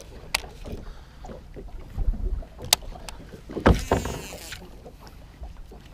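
A baitcasting rod and reel being cast: two sharp clicks, then about four seconds in a swish and the reel's spool whirring as line pays out. Wind buffets the microphone throughout.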